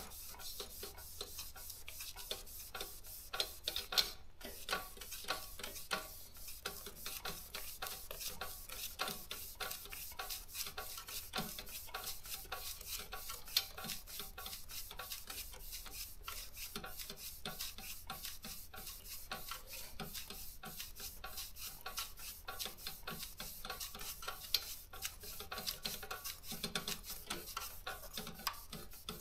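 A wet wipe rubbing and scrubbing the rubber platen of a Daro 20 typewriter, a steady soft scraping broken by many small irregular clicks.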